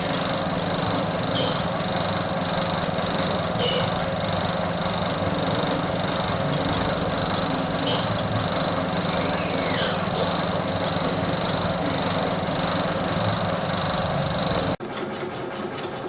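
Peanut skin-peeling machine running: a steady motor hum with an evenly pulsing rattle, and two sharp knocks about one and three and a half seconds in. Near the end the sound cuts abruptly to a quieter machine noise.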